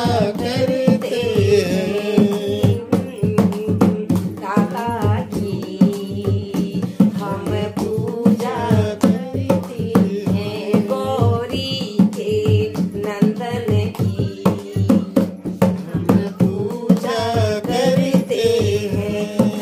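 Women singing a Hindi devotional bhajan in kirtan style, a single melodic line held and bent through long phrases, over a steady beat of hand-drum strokes and hand-clapping.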